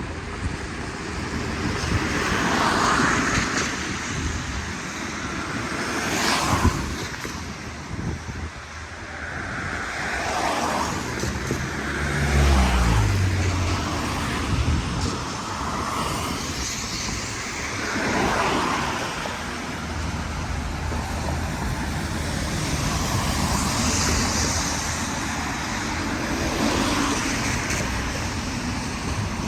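Road traffic passing close by, several vehicles one after another, each swelling and fading. About twelve seconds in, one vehicle's low engine note falls in pitch as it goes past, the loudest moment.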